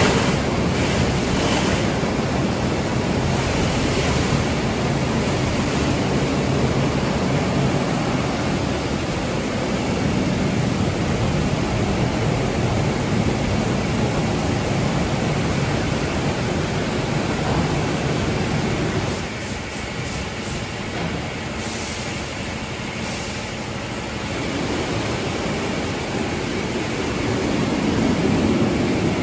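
Automatic rollover car wash running: a large rotating brush scrubs over a car's body while water sprays, a steady rushing noise. It eases off for a few seconds about two-thirds of the way through, then builds again near the end.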